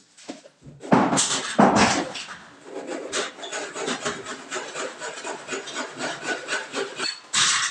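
Hand work on the top of a galvanized steel stud: a few loud knocks about a second in, then a long run of quick, even scraping strokes of metal being rubbed, with a louder scrape near the end.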